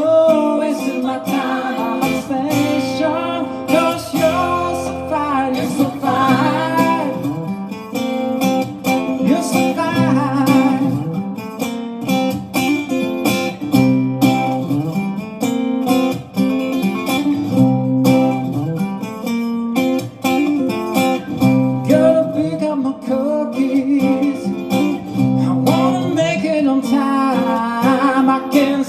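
Live acoustic guitar playing with a singing voice carrying the melody in places, most plainly near the start and again near the end.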